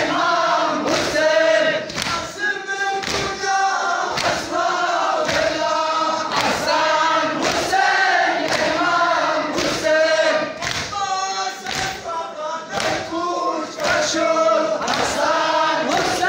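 A crowd of men chanting a Farsi noha (mourning lament) in unison, keeping time with rhythmic matam, hands striking chests in steady thuds about two a second.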